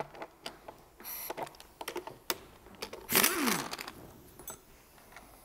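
Pneumatic impact wrench run in one short burst about three seconds in, loosening a bolt on the front of the engine block, its motor pitch dipping and rising again. Small metallic clicks of tools and parts handled around it, and a brief hiss about a second in.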